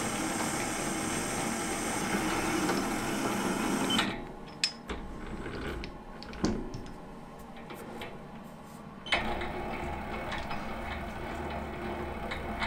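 Metal lathe turning a 5-inch aluminium billet, a carbide-insert tool skimming its edge: a steady dense cutting noise over the running machine. About four seconds in it drops off suddenly to a quieter stretch with a couple of sharp clicks. A low steady hum of the lathe running comes back about nine seconds in.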